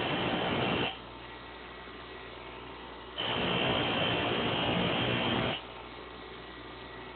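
Grinder cutting a taped pair of metal lock pick blanks in passes of a couple of seconds: a rough grinding noise that stops just under a second in, comes back for about two and a half seconds in the middle, and stops again. Between passes the grinder's motor keeps running with a quiet hum.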